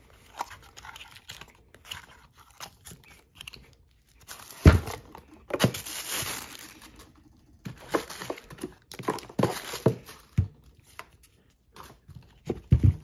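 Clear plastic bag crinkling and cardboard box rustling as a small sealed lead-acid battery is unpacked by hand, in irregular bursts. A few sharp knocks on the desk are mixed in, the loudest about five seconds in and another near the end.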